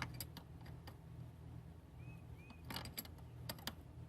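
Hand wrench clicking and clinking against a battery terminal bolt as a cable end is tightened down: a sharp clink at the start, a couple more just after, and a cluster of metal clicks near the end. Two short bird chirps come about halfway through.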